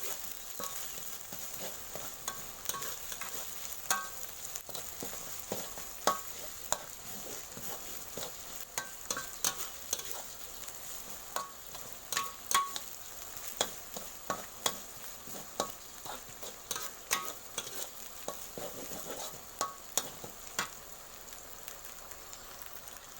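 Pounded curry paste of shallot, garlic, chili, lemongrass and galangal sizzling in a hot wok, being fried until fragrant. A utensil stirs it, clacking against the pan many times at irregular intervals, some strokes with a short metallic ring.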